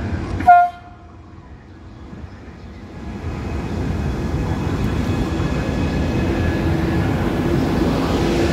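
A Trenitalia Intercity train gives one very short toot of its horn about half a second in, then its coaches roll past along the platform, the rumble of the wheels growing louder after about three seconds and staying steady.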